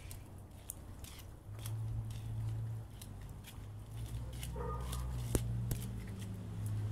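Low engine hum of a vehicle on the street, coming in about a second and a half in and swelling toward the end, under scattered sharp ticks of wet snow landing close to the microphone.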